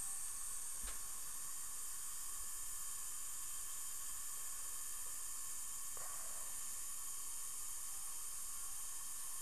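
Steady faint hiss with thin high whining tones over it, and a faint click about a second in.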